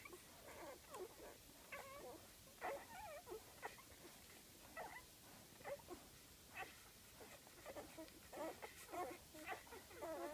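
Five-day-old golden retriever puppies squeaking and whimpering while they nurse: many short, faint, high cries that waver in pitch, scattered one after another.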